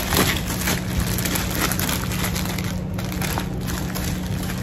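Clear plastic wrapping crinkling as it is handled and pulled open, a dense, continuous run of small crackles.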